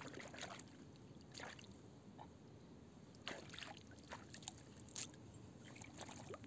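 Faint small splashes and sloshes of hands working in shallow river water at the bank, a few short separate splashes against a quiet background.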